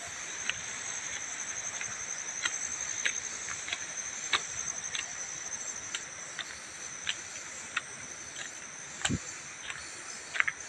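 A steady, high, pulsing insect chorus, with short crunching steps on a loose-stone gravel road about every half second and one dull bump about nine seconds in.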